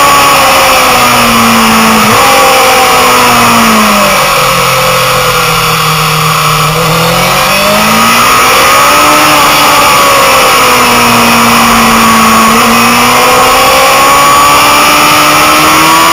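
Onboard sound of a motorcycle engine lapping a circuit: the revs drop away about four seconds in and stay low for a few seconds, then climb again as it drives out, dip once more near the end and rise again. A steady hiss of wind and road noise lies under the engine.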